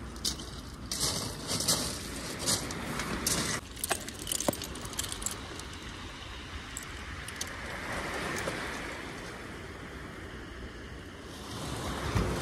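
Footsteps crunching and clattering on shingle pebbles, many sharp clicks over the first four seconds or so, then a steady wash of small waves breaking on the shingle.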